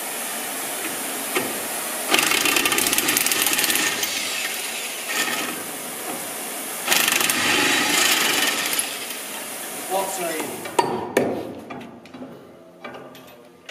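Cordless impact wrench hammering on a bolt in several bursts of a few seconds each, undoing the bolts of a tank's track tension adjuster assembly.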